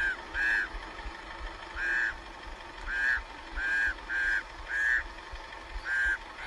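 Birds giving short, repeated alarm calls, about eight in six seconds, each a brief arched note: birds mobbing a snake.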